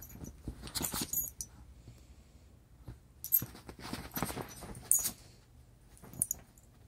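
A Yorkie and a kitten play-fighting on soft bedding: scuffling and pouncing in three short flurries, with quieter stretches between.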